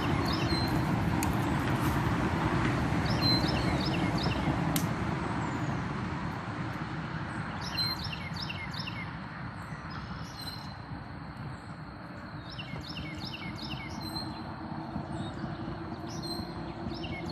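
A songbird singing the same short phrase of quick downward-sliding chirps over and over, about five times, over a steady rushing noise that eases off midway.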